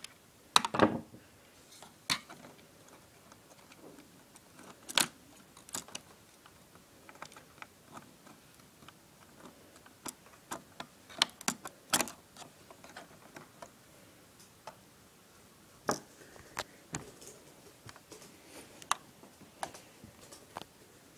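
Irregular small clicks and taps of an HP Omnibook XT1000s laptop's plastic and metal parts being handled while it is taken apart. Louder knocks come about half a second in and again around five and twelve seconds.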